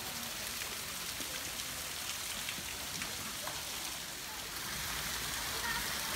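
Water trickling and spattering down a wet rock face from a small falls: a steady hiss with scattered drips.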